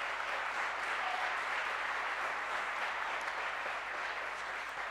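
Audience applauding steadily for several seconds, fading near the end.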